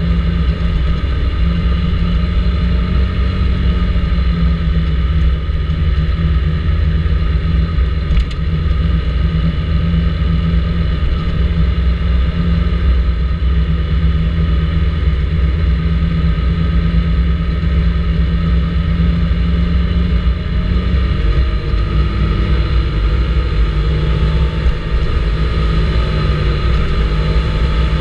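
Vespa GTS 300 ie scooter's single-cylinder four-stroke engine running steadily under way, with a heavy low rumble. Its note shifts a little about three-quarters of the way through.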